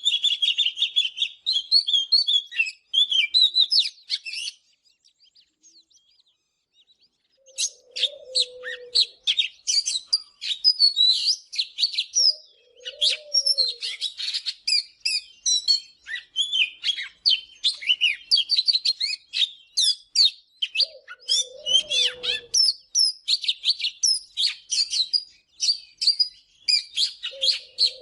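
Oriental magpie-robin singing: fast, varied whistled and chattering phrases. A brief pause comes about four seconds in, then the song runs on almost without a break. A lower, short warbling note recurs four times.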